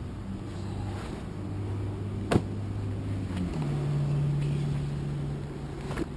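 A motor vehicle's engine running with a steady low hum that steps up in pitch a little past halfway, with one sharp click a little after two seconds in.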